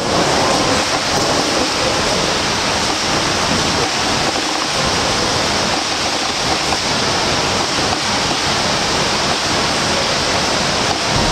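Steady rushing and splashing of water in an indoor swimming pool as swimmers swim front crawl.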